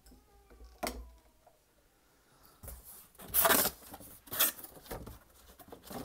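Handling noises from a cardboard box and its packaging being opened: a sharp knock about a second in, then bursts of rustling and scraping, loudest a little past midway.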